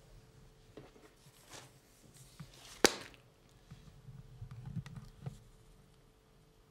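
A large hardback book being handled: paper rustling as pages and cover move, then one sharp slap about three seconds in as the book is shut, followed by softer rustles and small knocks as it is settled.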